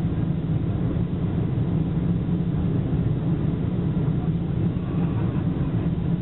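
Boeing 747-400 heard from inside the passenger cabin: a steady, even rumble of the four jet engines and rushing air, with no change in pitch or loudness.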